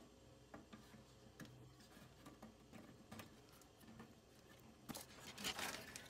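Faint scattered clicks of needle-nose pliers squeezing the plastic mounting pegs of a furnace control board. Near the end, a quick run of louder clicks and rustling as the board comes free of its pegs.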